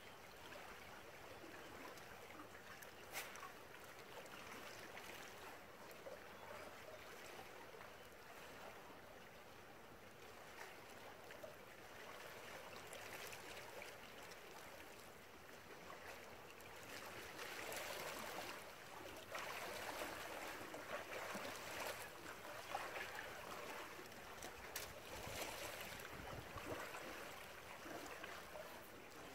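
Small waves lapping and splashing against shoreline rocks, a steady wash that grows louder for a stretch in the second half, with a few sharp clicks.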